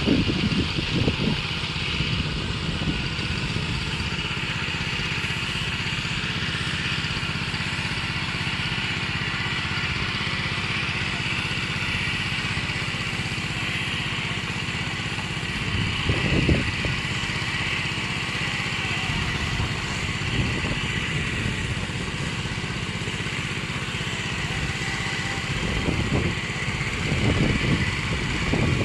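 Motorized crop sprayer's small engine and pump running steadily, with a hiss above it. Wind buffets the microphone in gusts about halfway through and again near the end.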